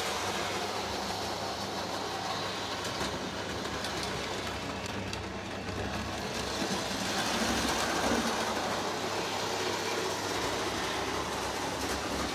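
Lionel O gauge Budd Rail Diesel Car model running steadily along the track, its electric motor humming under the rolling noise of the wheels on the rails.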